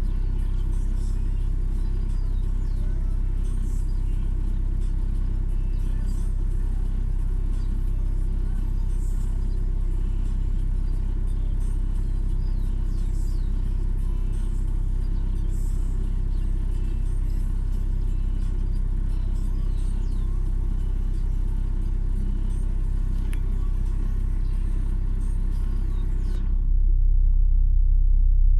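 A steady low rumble with faint high chirps here and there. Near the end the higher sounds drop out and the rumble gets louder.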